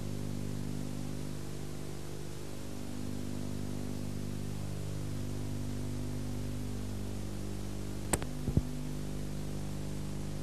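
Steady electrical mains hum with hiss, the noise floor of an old analogue videotape transfer, with a few sharp clicks about eight seconds in.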